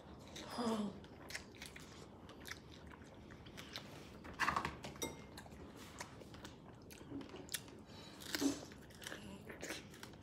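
Close-up mouth sounds of people eating mustard-dipped strawberries fast: wet biting, chewing, slurping and smacking with many small clicks. A short falling hum of a voice comes about half a second in.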